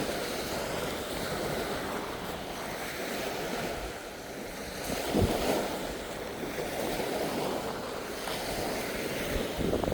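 Small waves breaking and washing up a sandy beach, with wind buffeting the microphone; the wash swells louder about five seconds in.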